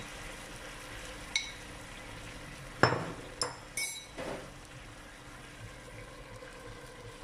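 Broccoli and meat stir-fry sizzling steadily in a pan after a splash of water is added. A few clinks of spoon and ceramic, and one louder knock about three seconds in as the bowl is set down on the counter.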